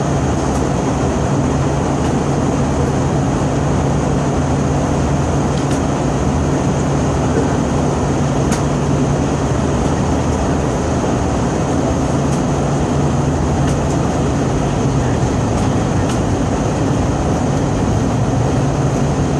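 Jet airliner on approach to landing: a steady, loud drone of engines and rushing air with a low hum, which eases somewhat about fifteen seconds in.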